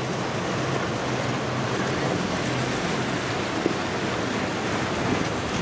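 Steady rush of surf and choppy inlet water with wind buffeting the microphone, under a low hum of boat engines. One short tap a little past the middle.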